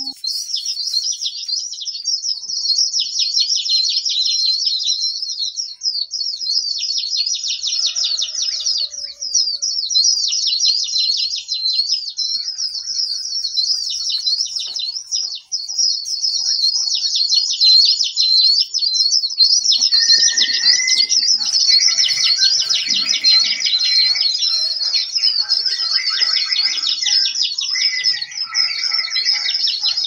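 Small songbirds twittering continuously in fast, high trills. About twenty seconds in, a second, lower-pitched bird voice joins and the chorus grows fuller.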